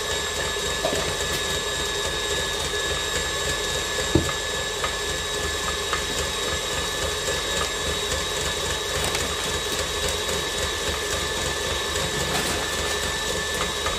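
Tilt-head stand mixer running steadily with a steady high whine, its beater creaming butter and sugar in the steel bowl. One brief knock about four seconds in.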